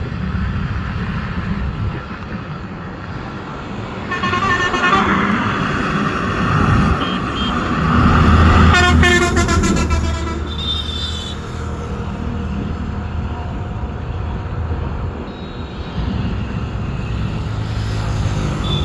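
Hyundai 210 excavator's diesel engine running steadily, with a horn sounding twice: briefly about four seconds in and louder about halfway through.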